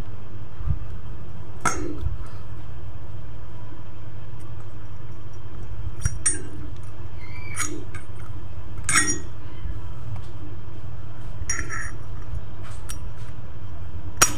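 A handful of light metallic clinks at irregular intervals, as a steel circlip and pliers are worked against a Honda scooter's rear CVT pulley while the clip is fitted over the pulley bearing. A steady low rumble runs underneath.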